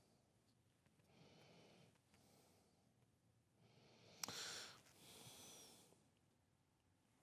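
Near silence: faint breathing through the nose, and one sharp small click about four seconds in as the metal Collins coping foot is pressed onto the jigsaw's base mount.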